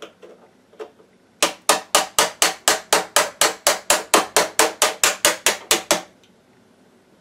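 A small hammer rapidly tapping out the center pivot pin of a Ninebot One electric unicycle's pedal. After a few light taps, a quick, even run of about two dozen sharp knocks, about five a second, stops about a second before the end.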